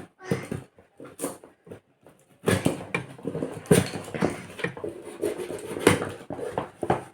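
Packaging being handled during an unboxing: rustling, scraping and knocks, scattered at first and busier from about two and a half seconds in.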